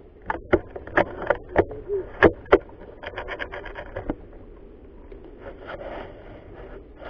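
Leaves, twigs and a ghillie suit rustling and scraping against a head-mounted camera, with a string of sharp clicks and knocks, the loudest two close together a little over two seconds in.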